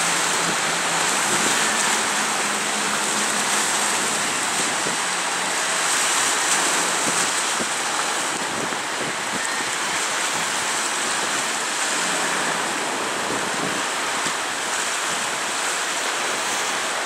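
Steady rush of churning water from the wash along a large cruise ship's hull as it passes close by, mixed with wind.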